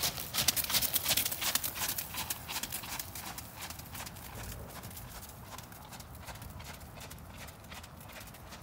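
Hoofbeats of a ridden horse on wet, gritty arena footing, a quick even run of strikes. They are loudest as the horse passes close in the first two or three seconds, then fade steadily as it moves away.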